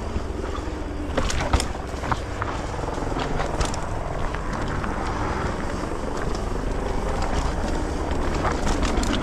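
Mountain bike rolling downhill on a rough trail, picked up by a GoPro action camera: a steady rumble of wind on the microphone and tyres on the ground, with sharp knocks and rattles of the bike hitting rocks, clustered about a second in and again near the end.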